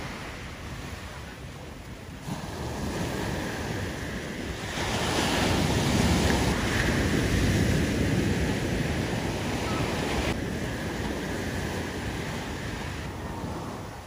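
Ocean surf washing up the beach, with wind buffeting the microphone. The wash swells loudest about five seconds in and eases off after about ten seconds.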